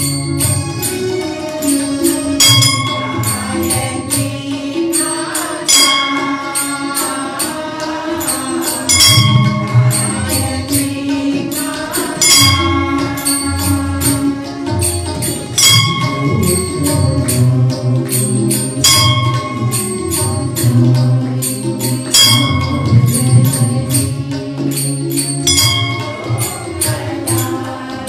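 Devotional music with chanting voices and steady jingling percussion; a ringing bell-like strike recurs about every three seconds.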